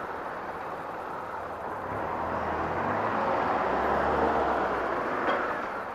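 Honda XRE 300's single-cylinder engine running at low speed on a climb, mixed with the diesel engine of a city bus just ahead. The sound swells about two seconds in and eases again near the end.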